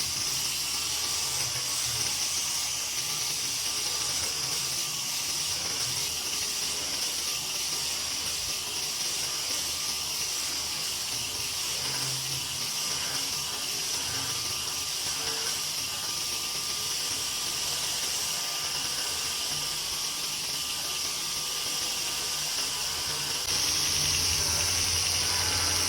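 Handmade surface grinder running without load, a steady hiss with a faint steady whine. Near the end a low hum gets louder.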